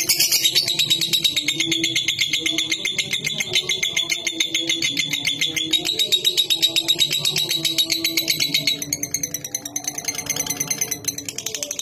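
Lovebird singing a long, rapid chattering trill of high notes, many a second: the prized long 'ngekek' song of a bird in full voice. The chatter breaks off about nine seconds in.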